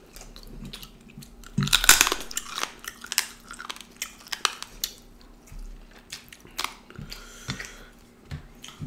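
Close-up eating sounds: chewing and biting on curried duck meat, with wet mouth smacks and clicks throughout and a louder bite about two seconds in.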